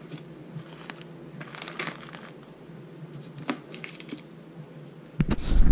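Sheet of food paper rustling and crinkling as it is handled over a layer of filo cheese triangles, with small scattered clicks and taps. About five seconds in, a sudden loud low rumble starts.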